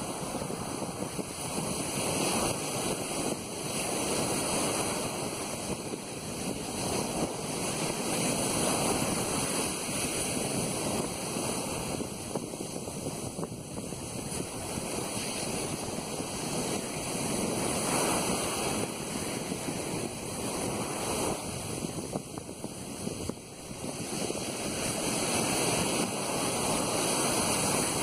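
Ocean surf breaking and washing up a sandy beach, a steady rush that swells and ebbs as each wave comes in.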